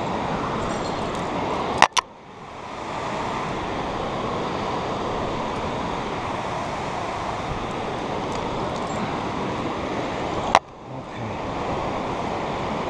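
Steady rush of a whitewater river below. A sharp double knock about two seconds in and a single knock near the end; after each the rush drops away and swells back.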